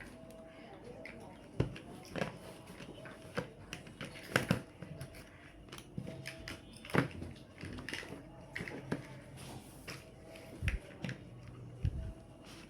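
Plastic building blocks clicking and knocking as pieces are handled and pressed together, in scattered single clicks spaced irregularly, about a second or more apart.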